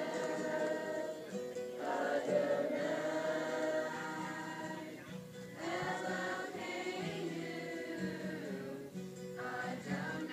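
A group of children and adults singing a song together in phrases a few seconds long, with an acoustic guitar strumming along.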